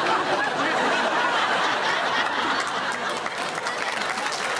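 Studio audience laughing, with scattered clapping joining in during the second half and building toward applause.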